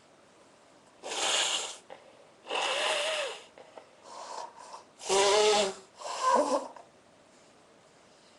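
A person's forceful nasal blasts, five in quick succession, the louder ones with a voiced honk: snorting or nose-blowing of the kind that goes with sneezing.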